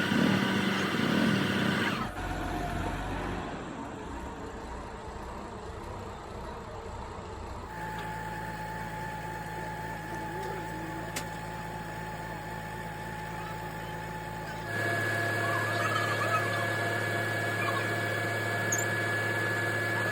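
Steady machine hum in several stretches that change abruptly about 2, 8 and 15 seconds in.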